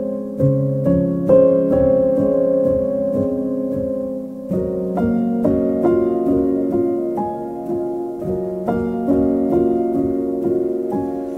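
Background piano music: a slow run of chords and single notes, each left ringing.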